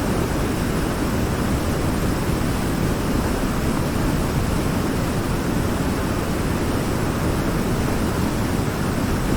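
Waterfall: falling water making a steady, even rushing noise, strongest in the low pitches.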